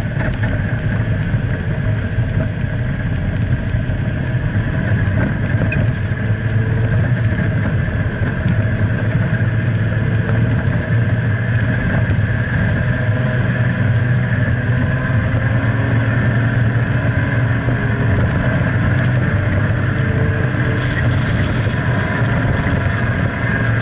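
Jeep Wrangler JKU Rubicon driving steadily uphill through soft, churned sand, heard from beneath the vehicle: a constant engine and drivetrain drone mixed with the hiss of sand thrown up by the tyres, which grows louder near the end.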